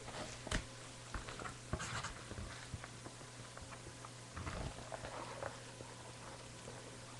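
Faint, scattered rustles and small clicks of items being handled on a table, over a steady low electrical hum.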